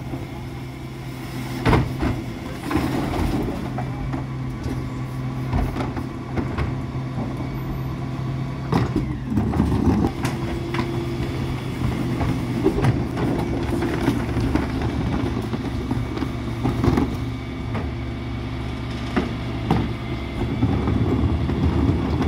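Dennis Elite 6 refuse truck's diesel engine running steadily at the kerb while its rear bin lift tips wheelie bins, with scattered knocks and clatters of the plastic bins against the lift and body.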